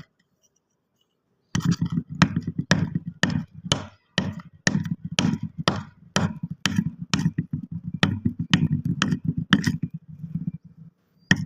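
Kinetic sand being worked in a quick run of sharp strokes, about three a second, starting after a second and a half of silence and pausing briefly near the end.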